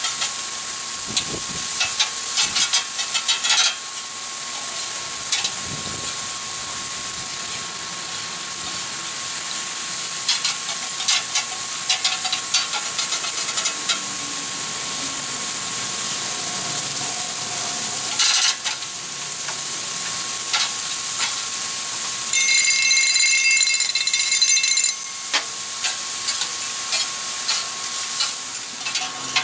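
Beef burger patties and sliced onions sizzling on the hot steel of a Blackstone flat-top griddle, with metal spatulas scraping and clicking on the steel. About two-thirds of the way through, a high steady ringing tone sounds for a couple of seconds.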